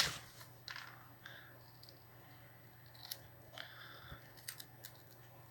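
Handling of a switched-off portable vacuum cleaner: a sharp click at the start, then scattered faint plastic clicks and rustles as its parts are worked on.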